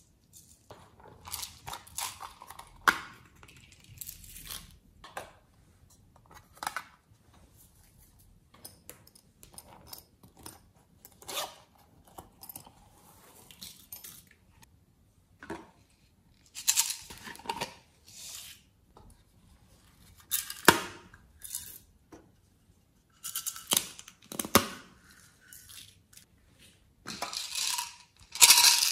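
Plastic bottles and containers handled by hand: confetti and glitter rattling as they are shaken out, and plastic lids clicking open and shut, in scattered bursts with a few sharp clicks.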